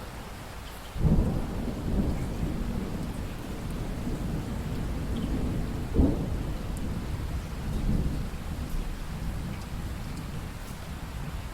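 Steady rain with a roll of thunder. A sudden low crack comes about a second in and rumbles on, a second sharp clap comes midway, and the rumble fades toward the end.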